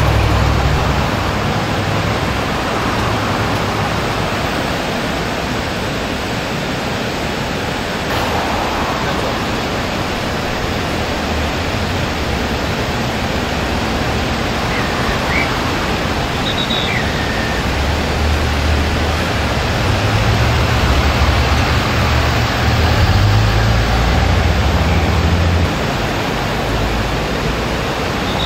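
Muddy floodwater pouring over a diversion dam's weir: a loud, steady rush of water from a dam overflowing in flood, with a deeper rumble swelling in the second half.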